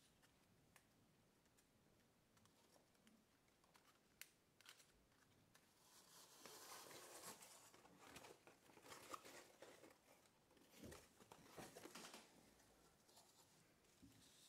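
Faint rustling and crinkling of folded-paper origami models being handled, loudest in a stretch from about six to twelve seconds in, after a few soft ticks.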